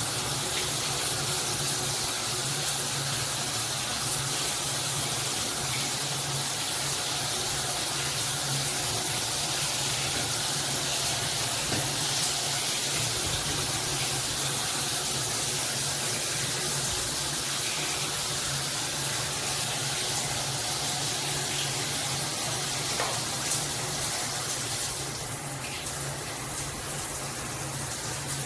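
Water spraying steadily from a Cobbe all-metal dual shower head combo, a constant rushing hiss. Near the end the spray gets slightly quieter and changes texture.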